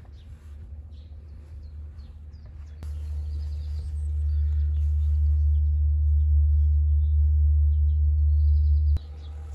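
Small birds chirping over a low rumble that grows louder about three seconds in and stops abruptly near the end.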